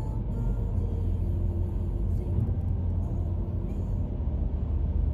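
Steady low rumble of a car cruising at expressway speed, heard from inside the cabin: engine and tyre noise.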